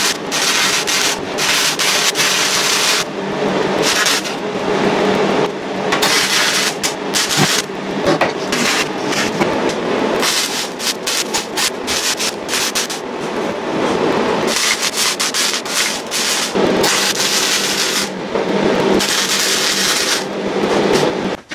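Jefferson MIG welder arc crackling on mild steel, in a series of welding runs broken by short pauses, stopping abruptly near the end.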